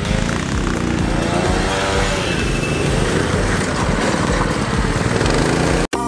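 Small youth quad's engine running and revving up and down, its pitch rising and falling; the sound cuts off suddenly near the end.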